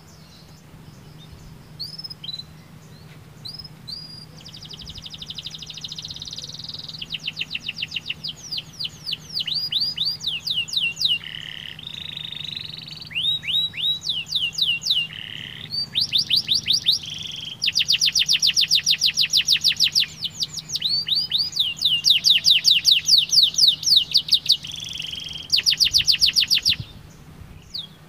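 Domestic canary singing a long song. It opens with a few separate chirps and builds into fast, evenly repeated trills, each phrase switching to a new note higher or lower, loudest in the second half. The song stops shortly before the end.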